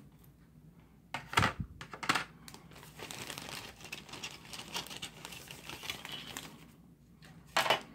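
Plastic parts bag crinkling as plastic model-kit sprues are taken out and set down in a cardboard box, with a few sharp clacks of plastic, the loudest about a second and a half in and near the end.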